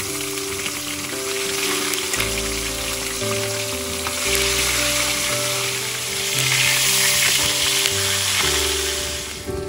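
Whole fish frying in hot oil in a wok, a steady sizzle that gets louder about four seconds in and cuts off just before the end. Soft background music plays underneath.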